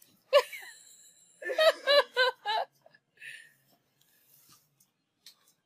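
A sharp high-pitched cry, then a quick run of about five short high-pitched laughs, excited surprise at a gift.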